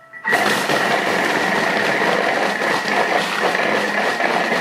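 Thermomix food processor running its blade at speed 5, chopping oranges, lemon and a carrot in its steel bowl: it starts just after the beginning and runs at a steady level with a constant high whine over the chopping noise.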